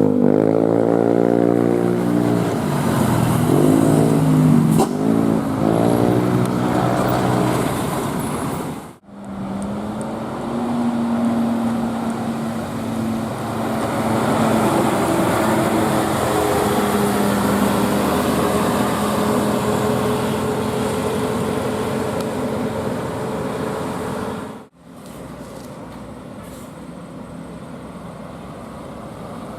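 Multi-tone 'telolet' bus air horn playing a tune of shifting, sliding notes for about eight seconds. After a break it sounds again in long held notes that step up and down over the bus's engine and road noise, and near the end only quieter traffic noise remains.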